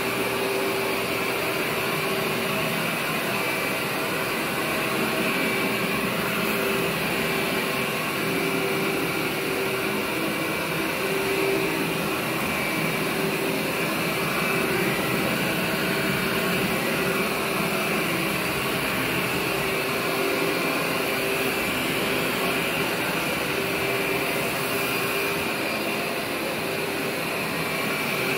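Corded Workhorse upright vacuum running continuously as it is worked over carpet: an even motor noise with a steady hum and a fainter high tone.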